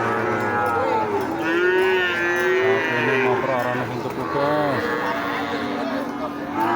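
Cattle mooing: long, drawn-out calls that overlap one another.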